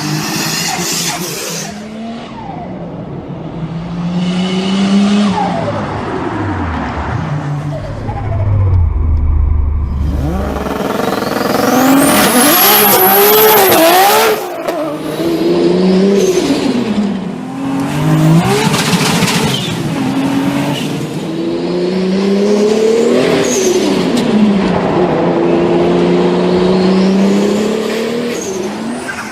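Turbocharged car engines revving hard again and again, pitch climbing and falling with each rev, with a high rising turbo whine about twelve seconds in.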